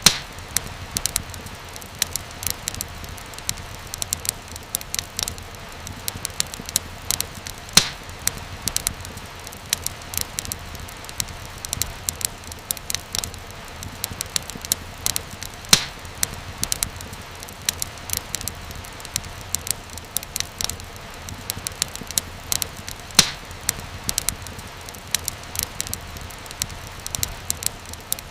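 Wood fire crackling steadily, with a soft low rumble and frequent sharp pops and snaps, a few louder pops standing out.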